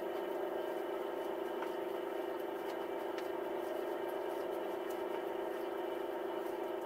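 A steady hum of several held tones, with a few faint clicks, fading out near the end.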